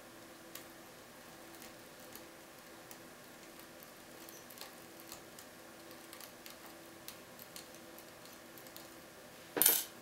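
Faint, scattered clicks and scrapes of a steel lock pick working the pins inside a Keso 2000 cylinder lock, with one short, much louder clack near the end.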